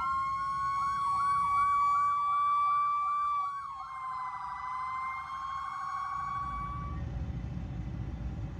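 Emergency vehicle electronic sirens sounding in a parade: a steady tone under a repeating yelp that switches to a faster warble about four seconds in, then cuts off about seven seconds in, leaving a low rumble of passing vehicles.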